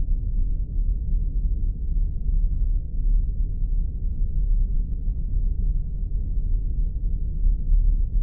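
Spaceship ambience sound effect: a steady deep rumble that holds unchanged with no distinct events.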